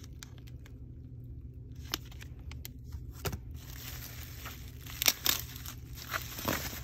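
Bubble wrap being handled and pulled open around a cardboard package: a few faint clicks at first, then from about three seconds in a run of crinkling and crackling with several sharp snaps, over a steady low hum.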